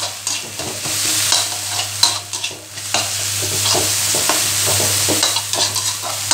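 Metal spatula stirring and scraping a pounded chili, garlic and shallot paste around a black iron wok of hot oil, the paste sizzling under repeated scrapes of the spatula. There is one sharper clank of spatula on wok about two seconds in and a steady low hum underneath.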